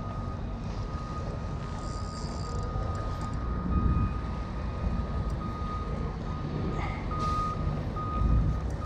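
A vehicle's reversing alarm beeping at one steady pitch, over a low rumble.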